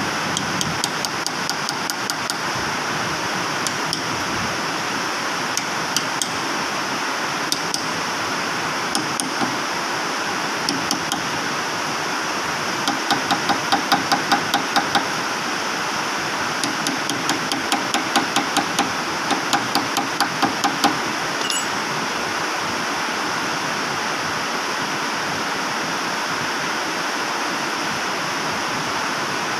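Hammer blows ringing on a steel punch against the hub of a Linde R16 reach truck's load wheel, knocking it loose during a wheel change. A few single strikes come first, then two quick runs of about four blows a second near the middle, over a steady background noise.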